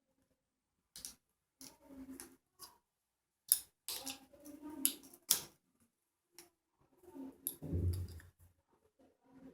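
Scattered sharp clicks and knocks of a grounded wall socket's plastic and metal parts and small tools being handled, with a duller thump about eight seconds in.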